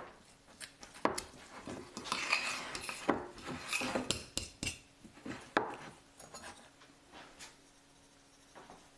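Metal fork scraping and clinking against a ceramic plate while mashing and stirring a stiff egg-yolk biscuit dough, in quick irregular strokes. The strokes die away about six seconds in.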